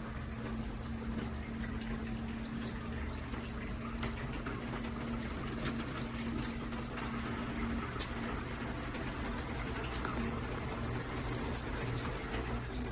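Shower head spraying water in a small bathroom, a steady rush with a faint low hum and a few sharp ticks of drops, the loudest about five and a half seconds in.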